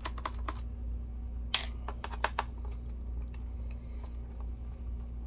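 Screwdriver clicking and tapping against an HP EliteBook's plastic bottom case as its case screws are loosened: a quick run of sharp clicks at the start, a louder click about one and a half seconds in, and another cluster around two seconds, over a steady low hum.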